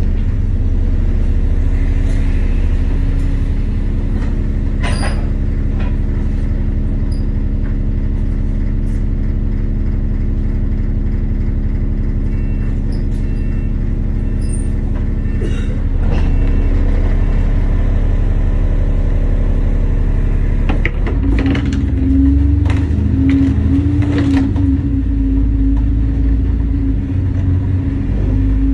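A London double-decker bus's diesel engine idling at a stop, heard from inside the upper deck, with a few sharp clicks and knocks and faint intermittent beeping around the middle. About 21 seconds in, the engine note gets louder and wavers as the bus pulls away.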